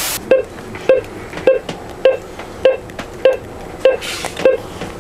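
Medical heart monitor beeping steadily, about one short beep every 0.6 seconds, roughly 100 a minute. A hiss of TV static cuts off just as it begins.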